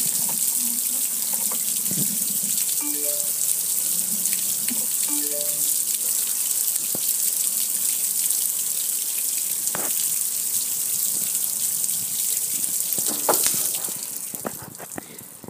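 Water spraying onto a metal gas grill and running off it in sheets: a steady hiss with some clicks and knocks, fading away near the end.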